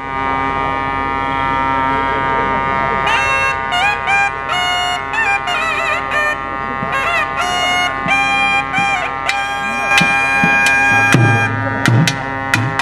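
Music: a wind instrument plays a melody with bends and slides over a steady drone. Sharp percussion strikes join in from about three quarters of the way through.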